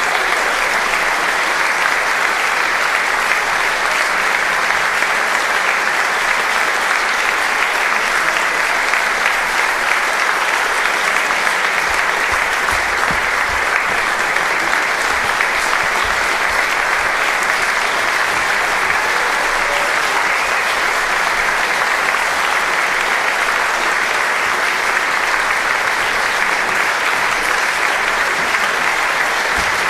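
Theatre audience applauding steadily, a dense, sustained clapping at a curtain call.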